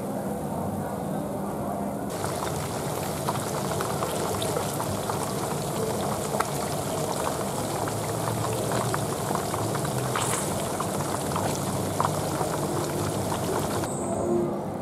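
Hot cooking oil bubbling and crackling, a dense hiss full of small rapid pops. It turns brighter and fuller about two seconds in.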